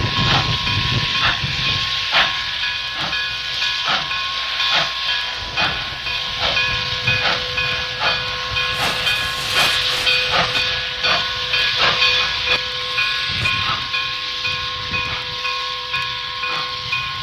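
Steam locomotive hissing steam, with a steady whistling tone held underneath and regular beats about every three-quarters of a second. About halfway through comes a brief louder burst of hiss.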